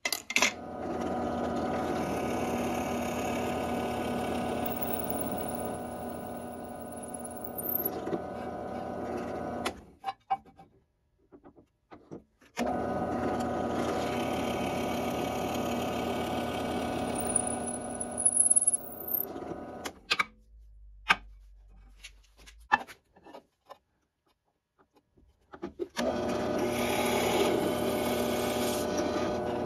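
Benchtop drill press running and boring into a wooden block, in three runs of about ten, seven and four seconds, each a steady motor hum with a high whine. Clicks and knocks come between the runs.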